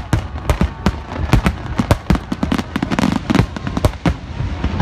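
Grand-finale fireworks barrage: rapid, overlapping bangs and cracks of bursting shells, several a second, over a continuous low rumble.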